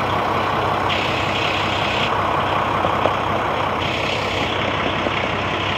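Diesel engine of a Peterbilt roll-off garbage truck running steadily close by, with two bursts of hiss, about a second in and again about four seconds in.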